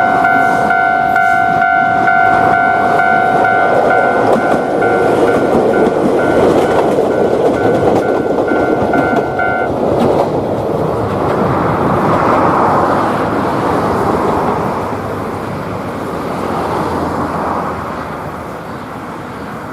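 Japanese level-crossing alarm ringing its repeating electronic "kan-kan" tone while an Ichibata Electric Railway train passes. The alarm stops about ten seconds in. The train's rumble carries on after it and fades toward the end.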